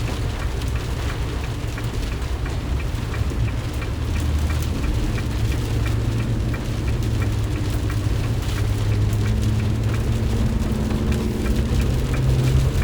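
Heavy rain on a 2020 Ram ProMaster van as it drives, with a steady rush of rain and wet-road noise over a low engine and tyre rumble. The rumble grows a little louder and steadier in the second half.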